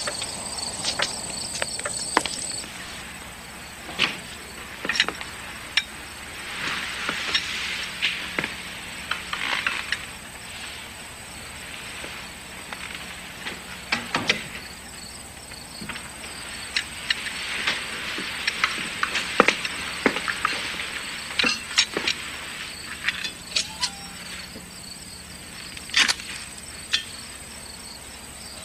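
Crickets chirping in a steady high trill, with a hiss that swells and fades twice and scattered light clicks and knocks.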